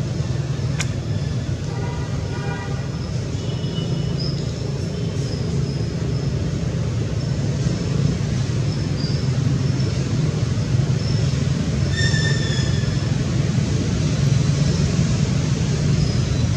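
Steady low drone of outdoor background noise. A few short, high-pitched calls stand out, around two seconds in and again about twelve seconds in.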